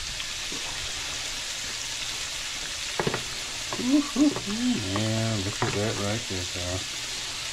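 Steady sizzling of gar pieces frying in a skillet while shrimp are stirred into a pot of gumbo with a plastic spoon, with a few knocks of the spoon against the pot. About halfway through, a short wordless voice sound is heard over the sizzle.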